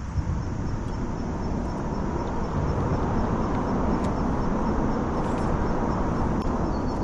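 Steady low rumble of road traffic crossing the bridge overhead.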